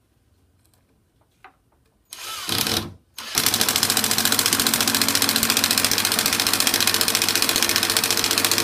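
Cordless impact driver driving a wood screw through a pocket hole into clamped boards: a short first burst about two seconds in, then, after a brief pause, the rapid steady hammering of the impact mechanism as the screw is driven home from about three seconds in.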